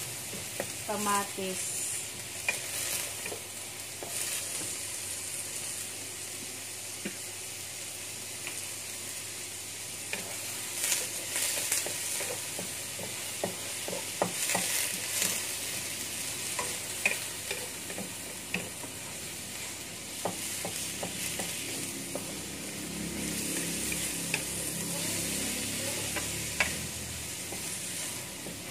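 Tomatoes sautéing in a black wok, sizzling steadily while a wooden spatula stirs them, scraping and tapping against the pan again and again.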